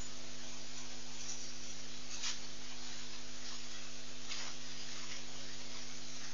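Steady electrical hum and hiss from a live webcam's audio feed, with two brief brighter swishes, about two and four seconds in.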